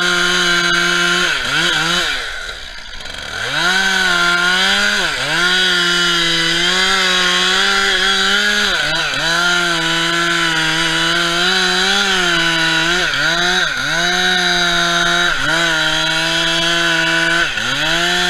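Two-stroke chainsaw running at high revs while cutting wood. Its pitch sags and picks up again every second or two, and it drops away briefly about two to three seconds in.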